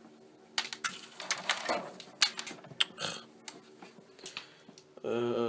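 Rattling clicks and knocks of window blinds being handled and tied up. Near the end comes a short wordless vocal sound from a man.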